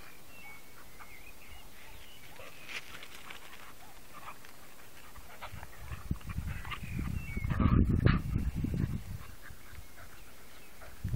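Dogs barking faintly, in short repeated barks through the first half. In the second half a louder low rumbling noise rises and falls on the microphone for a few seconds, then fades.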